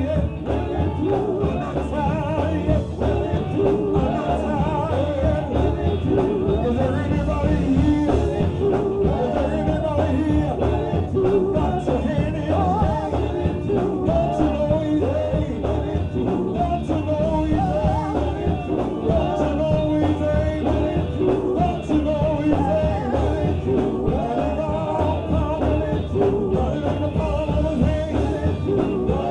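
Live gospel music: a band with drums and bass playing an upbeat song, with singing voices over it.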